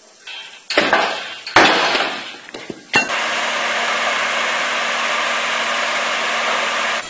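Two sharp cracks as a homemade lever-arm wedge splitter is forced down into a log and the wood splits. Then, after a sudden change, a Hood log loader and its log-cutting rig run steadily and loudly with a low hum under the noise, cutting off abruptly near the end.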